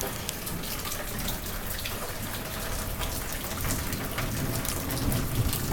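Steady rain falling, with many individual drops striking hard surfaces close by.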